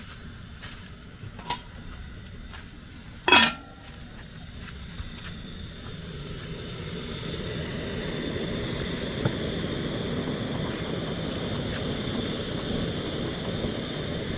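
An aluminium pot lid clanks once, loudly, about three seconds in, with a few lighter clinks before it. From about six seconds a steady rushing builds and holds: the gas burner's flame under the pot.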